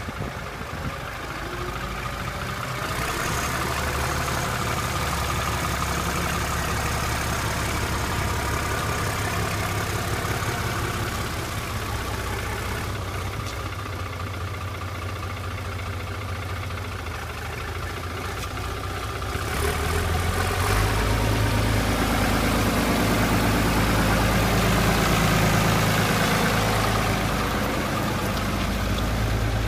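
Fiat 100-90 farm tractor's diesel engine running steadily. About two-thirds of the way through it grows louder and heavier, as if revved up or put under load.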